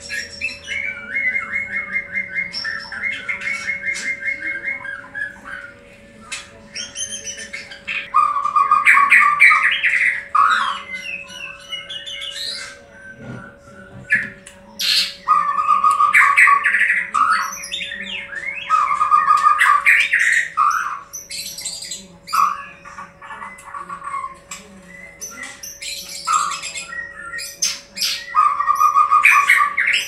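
White-rumped shama (murai batu) singing loud, varied song phrases of a few seconds each, separated by short pauses, with a fast repeated trill near the start and sharp clicking notes between phrases. A faint steady hum runs underneath.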